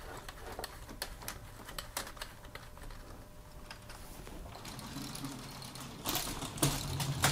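Small irregular clicks and rattles of LEGO Technic plastic parts as the car transporter's rear ramp is folded up by hand, with louder scuffing handling noise near the end.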